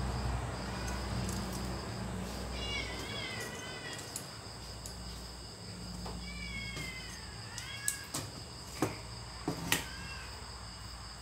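A cat meowing repeatedly, each meow a drawn-out call that falls in pitch, over a steady high insect trill. A few sharp clicks come in the second half.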